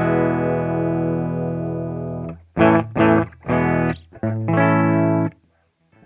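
Electric guitar played through a Wampler Ego compressor pedal into a Kemper amp's Marshall profile. A chord rings out and fades slowly over about two seconds, followed by three short chord stabs and a held chord, then it stops near the end.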